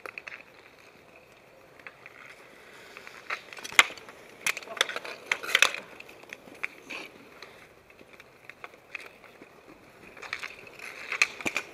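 Street hockey sticks clacking and slapping against the ball, each other and the asphalt, in a quick cluster of sharp knocks a few seconds in and a few more near the end.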